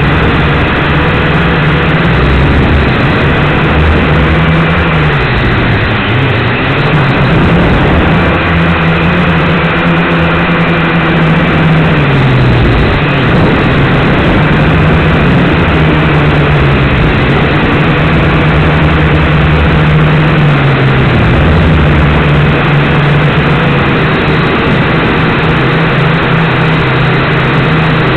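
Micro quadcopter's motors and propellers running loud and steady, recorded by its onboard camera. Their hum dips and rises in pitch several times as the throttle changes.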